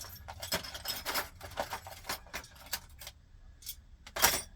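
Small metal tools clicking and clinking as they are rummaged through and handled, a quick irregular run of light taps with a louder clatter about four seconds in.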